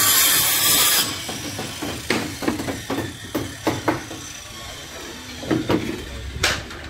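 Carpentry on a timber roof frame: a loud rushing noise for about the first second, then about ten irregular sharp knocks of a hammer on wood.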